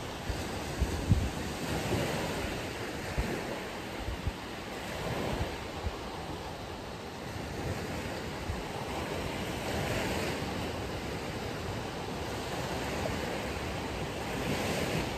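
Ocean surf breaking and washing up the beach in slow, rising and falling swells, with wind buffeting the microphone in short low thumps.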